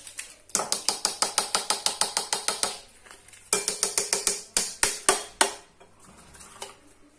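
A whisk beating an egg mixture in a bowl: rapid, rhythmic clicks of the wires against the bowl, several a second. The clicks come in two runs of about two seconds each, with a short pause between them.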